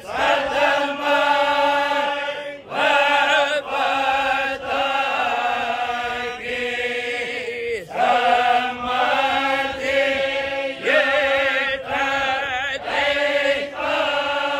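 A voice chanting a slow, melodic devotional song. Held notes waver with ornaments, in phrases of one to three seconds separated by brief breaths, over a steady low tone.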